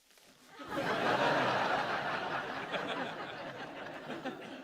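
Studio audience laughter that swells up about half a second in and slowly dies away.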